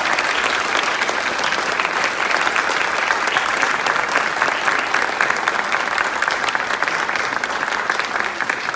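Audience applauding, a dense and steady clapping that begins to ease near the end.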